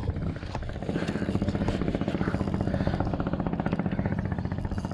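Small single-boat outboard motor, a Hangkai 12 hp, running steadily at low speed with a fast, even pulsing beat.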